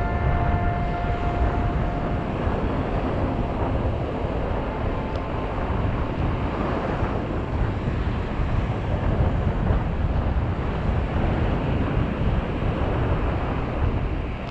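Strong wind buffeting the microphone over the rush of surf on a beach. A faint steady motor whine fades out in the first couple of seconds.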